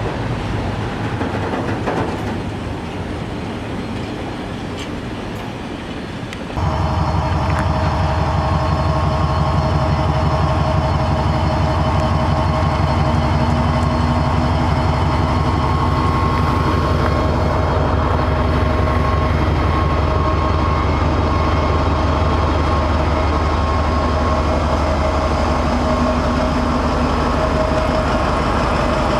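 Empty container flat wagons of a freight train rolling past, wheels rattling over the rails. About six and a half seconds in, the sound switches abruptly to a louder, steady diesel: a Freightliner Class 70 locomotive's GE PowerHaul V16 engine running evenly, a deep hum with held whining tones over it.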